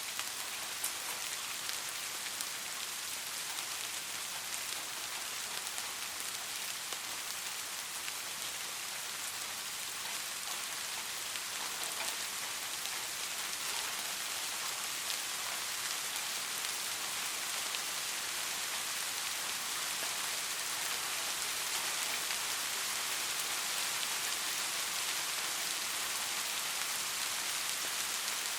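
Steady soft rainfall, an even hiss with a fine patter of many small drops striking a surface, growing slightly louder toward the end.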